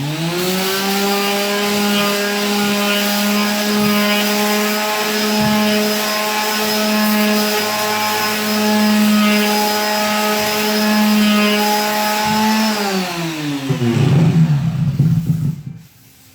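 Electric sander starting up, running at a steady pitch as it sands primed canvas, then switched off and winding down about 13 seconds in, followed by some knocking and handling.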